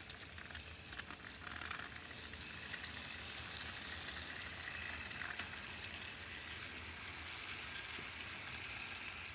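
Battery-powered Trackmaster toy trains running on plastic track: a steady, quiet motor whir and wheel rattle, with a few light clicks.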